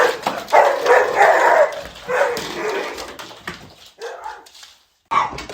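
A dog vocalizing in several bursts, loudest in the first two seconds and fading toward the end, with a brief silence near the end.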